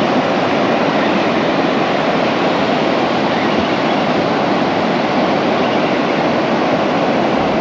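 Loud, steady rushing of wind and breaking surf on a beach, heard through a chest-mounted action camera's microphone.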